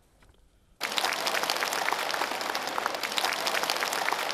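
Crowd applauding, dense many-handed clapping that starts suddenly about a second in and keeps an even level.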